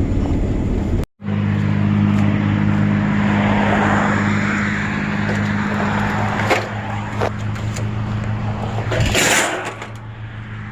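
A vehicle engine running steadily under way, with road noise over it. About a second in the sound cuts out for a moment, and a few seconds from the end there is a short hiss, after which it runs on more quietly.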